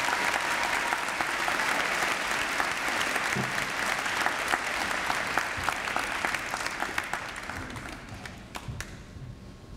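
Audience applauding, dense clapping that fades away over the last couple of seconds, ending in a few scattered claps.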